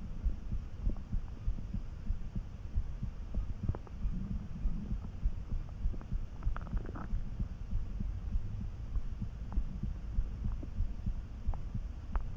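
Hungry human stomach calmly churning: a steady low rumble with repeated soft pulses, and a few short gurgles, the clearest about six and a half seconds in. The sound of an empty stomach some hours after lunch.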